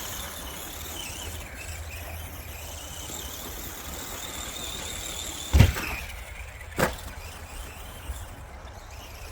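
ARRMA Granite Voltage RC truck's brushed electric motor and drivetrain whining steadily as it drives, fading out just after a loud thump about five and a half seconds in; a second, smaller thump follows about a second later.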